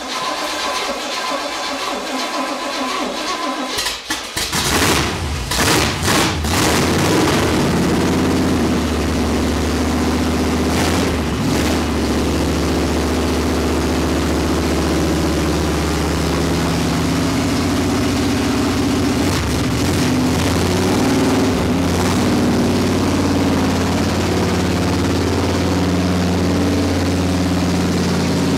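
Freshly rebuilt Pontiac V8 in a 1966 GTO turning over on the starter for about four seconds, then catching, revving up briefly and settling into steady running for the rest, with a few short blips. This is the engine's first start after its rebuild.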